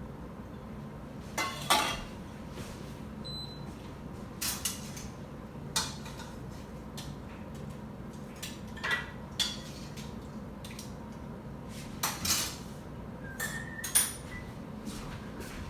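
Glass canning jars and kitchenware clinking and knocking as filled pickle jars are handled: about a dozen separate sharp clinks spread out, some ringing briefly.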